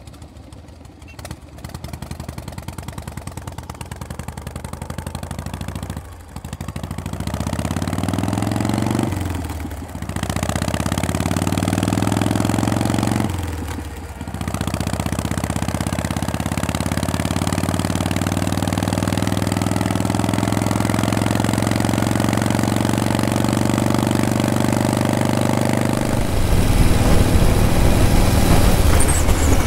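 Vintage Harley-Davidson V-twin motorcycle pulling away and accelerating through the gears. The engine note rises in pitch and drops briefly at each of about three shifts, then the bike cruises at a steady speed. Near the end a louder low rumble of wind joins in.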